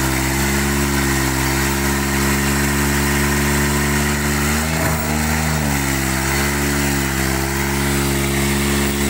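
Tractor diesel engine running steadily, briefly revving up about five seconds in and settling back, with a smaller swell a couple of seconds later.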